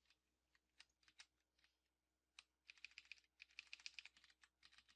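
Faint keystrokes on a computer keyboard: a few single keys, then a quick run of typing from about halfway through.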